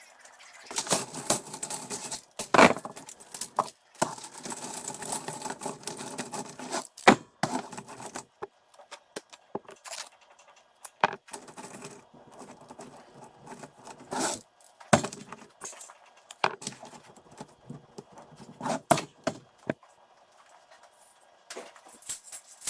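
Sheet-metal duct stock being handled and worked: light metallic clinks, knocks and rattles, several sharp clanks, and stretches of rattly scraping.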